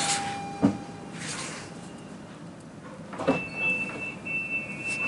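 Commuter train stopped at a platform: short bursts of air hissing and two sharp knocks, then a high steady warning tone with brief breaks starting about three seconds in, the signal that the doors are closing.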